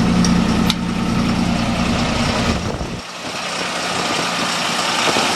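A Ford F650's 5.9-litre Cummins diesel idles steadily, with two light clicks in the first second. About three seconds in its low rumble drops away sharply, leaving a fainter hum under a hiss.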